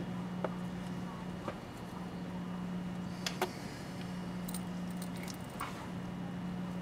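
A few light, separate clicks of fine watchmaker's tools (screwdrivers and tweezers) being handled and touching the bench mat and the movement holder, over a steady low hum.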